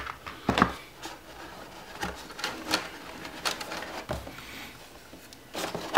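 Handling noises of unboxing: a plastic-faced LED light panel being lifted out of its moulded plastic tray in a cardboard box, with scattered knocks, clicks and light rustles of plastic and cardboard.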